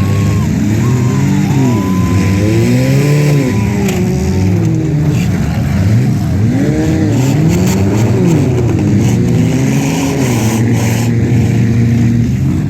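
Several demolition derby car engines revving up and down at once, their pitches rising and falling over each other, with a few sharp knocks in between.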